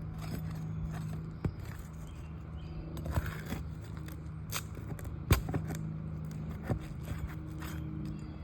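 Scraping and scattered clicks of an asphalt shingle being worked loose with a lifting tool, with one sharp crack about five seconds in, over a steady low hum.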